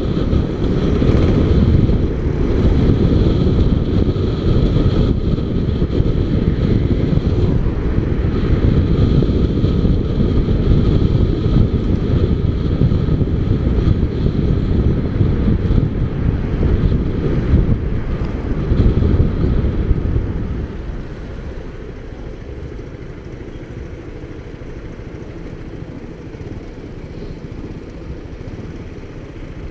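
Motorcycle riding with its engine running under heavy wind rumble on the bike-mounted camera's microphone. About two-thirds of the way through it eases off and the sound drops to a quieter engine as the bike slows.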